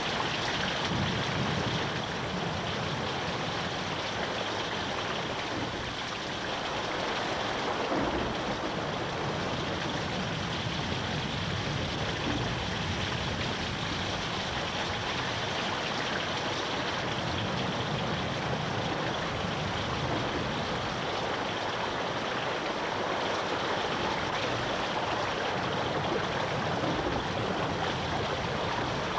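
Steady rushing of fast-flowing water, as in a river or torrent, with no break or change in level.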